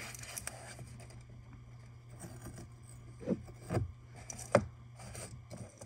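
Hands smoothing and handling the paper pages of a planner: rubbing and rustling, with a few sharp clicks and taps, the loudest about four and a half seconds in, over a steady low hum.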